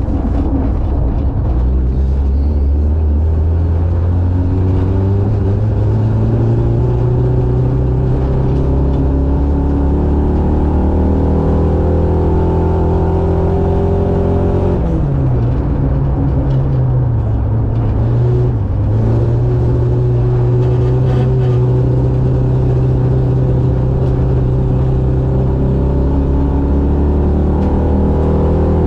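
A race vehicle's engine running hard and steadily. Its pitch climbs slowly, drops and recovers about halfway through, then holds steady.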